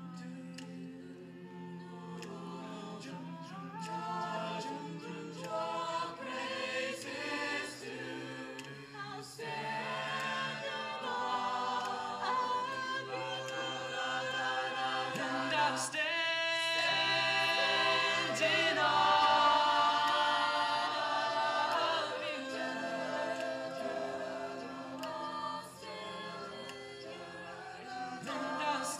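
An a cappella vocal group sings in close harmony with no instruments. The sound swells to its loudest about two-thirds of the way through.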